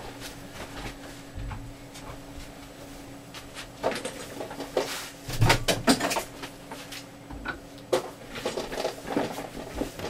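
A few scattered knocks and clicks of handling and movement, the loudest a dull thump about five and a half seconds in, over a faint steady hum.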